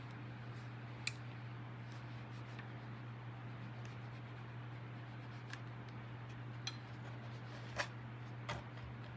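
Faint rubbing of a clothes iron being worked back and forth over a fabric patch on a sock, with a few light clicks and taps, over a steady low hum.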